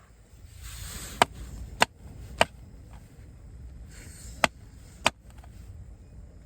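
A frozen-solid egg being knocked against something hard to crack its shell: five sharp knocks, three about half a second apart, then two more about two seconds later, with brief rustling before each group.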